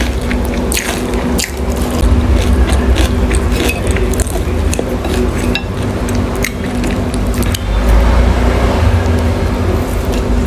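Close-miked wet chewing of dim sum: irregular squishy smacks and clicks of mouth and food.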